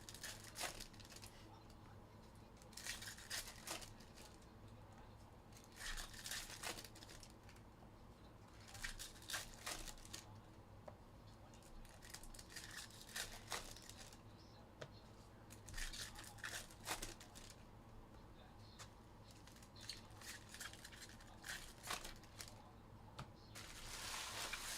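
Foil wrappers of 2023 Topps Series 2 hobby card packs being torn open and crinkled, in short bursts every few seconds.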